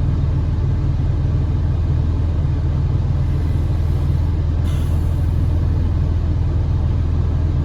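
Steady low rumble of a van idling, heard from inside the cab with the air conditioning running to cool it down.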